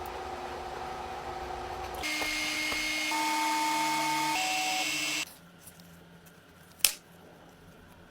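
A small electric power tool running with a steady whine. It steps up louder about two seconds in and changes pitch twice, then cuts off abruptly about five seconds in. A single sharp click follows near the end.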